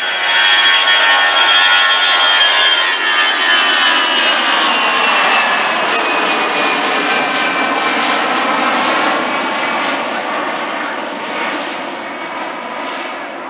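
Airbus A320-212's twin CFM56 turbofan engines at takeoff power as the jet lifts off and climbs past overhead: a loud jet roar with a high whine that slides down in pitch, then slowly fading as it climbs away.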